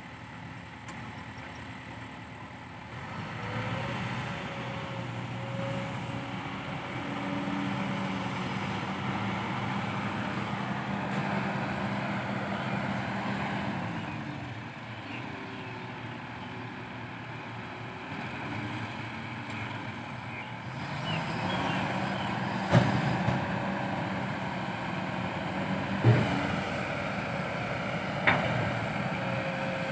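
Kobelco SK200-8 excavator's four-cylinder diesel engine working under hydraulic load, its note rising and falling as the machine digs and swings. Three sharp knocks come in the later part as the bucket loads soil into a dump truck.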